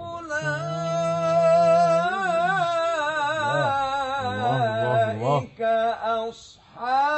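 Male Qur'an reciter's voice, unaccompanied and without added echo, holding one long ornamented melodic phrase in maqam Nahawand for about five seconds, with a lower held tone beneath it for the first two seconds. After a short breath near the end, the voice starts the next phrase.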